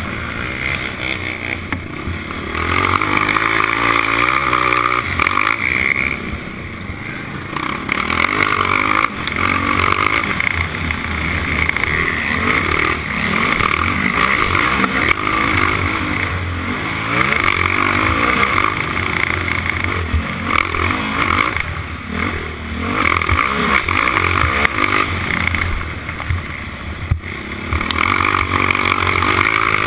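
Four-stroke racing quad's engine under hard riding, revving up loud and dropping back again every few seconds as the throttle is opened and rolled off.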